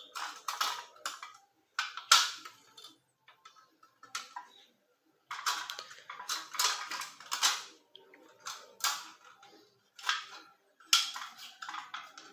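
Thin aluminium beer can being bent and crushed by hand, its cut strips crinkling and clicking in irregular bursts with short pauses between.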